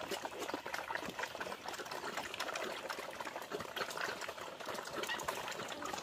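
Small black pigs and ducks feeding on wet mash of chopped greens: a dense, steady crackle of wet chomping, smacking and slurping.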